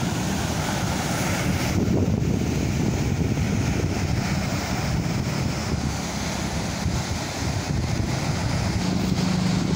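Strong, loud wind buffeting the microphone, over the steady wash of surf breaking against the rocks at the foot of a sea cliff.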